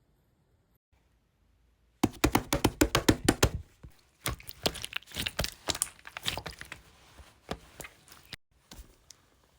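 Slime being squeezed and pressed by hand: a sudden rapid run of sticky clicks and air-bubble pops about two seconds in, loudest at first, then softer, sparser crackling.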